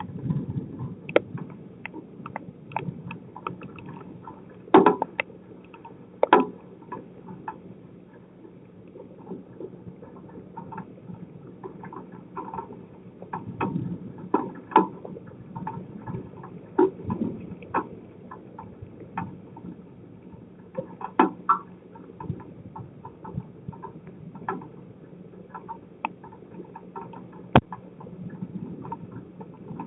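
Storm rain heard through an outdoor driveway camera's microphone: irregular sharp taps of drops striking the camera housing over a steady rush of rain and wind.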